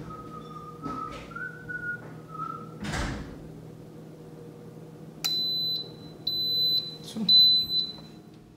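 Instant Pot electric pressure cooker beeping: a run of three or four short, high electronic beeps starting a little over five seconds in, as the rice program switches on to start cooking. Before the beeps there is a faint wavering tone and a single click about three seconds in.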